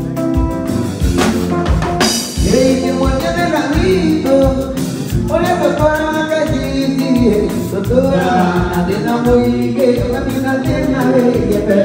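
Live mugithi band music: a man sings lead over electric guitar and a steady drum beat. The vocals come in about two seconds in, together with a cymbal crash.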